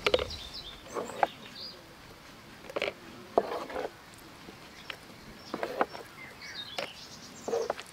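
Thick homemade melon syrup being spooned through a plastic funnel into a glass jar: scattered soft plops and scrapes with a few sharp clinks, and small birds chirping in the background.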